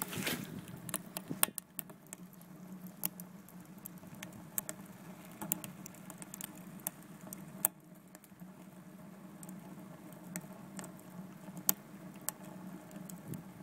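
Wood fire crackling in the feed tube of a rocket stove heater: irregular sharp pops and snaps over a steady low hum.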